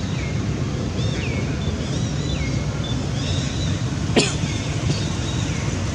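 Outdoor ambience: a steady low rumble with a high, falling chirp repeating about once a second, and one sharp click about four seconds in.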